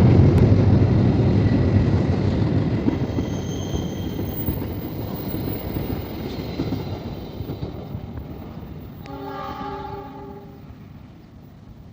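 A diesel train passing on the track, its low rumble fading steadily as it moves away. About nine seconds in, a horn sounds once for about a second and a half.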